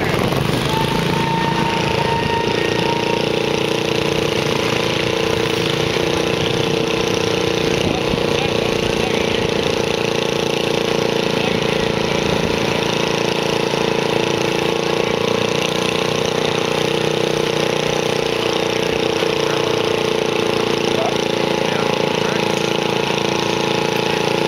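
Small garden-tractor engine idling steadily while the tractor waits hitched to the weight sled.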